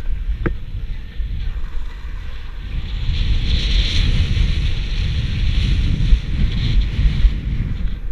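Wind buffeting an action camera's microphone as a skier runs downhill, a heavy rumble, with the hiss of skis sliding and scraping over snow that grows louder about three seconds in and eases off near the end.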